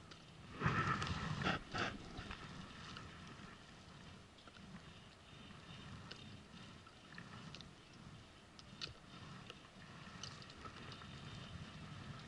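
Water lapping against an inflatable boat's hull, with a louder rustling burst about a second in and a few faint clicks later.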